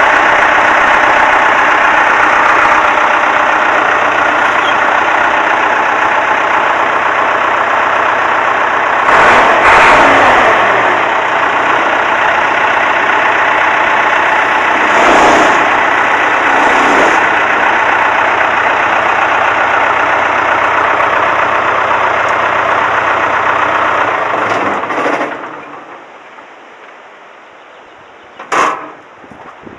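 Four-cylinder Perkins diesel engine of a 1971 Allis-Chalmers loader backhoe running steadily, with brief louder surges about nine and fifteen seconds in. It is shut off a few seconds before the end, dying away within about a second, and a single sharp click follows.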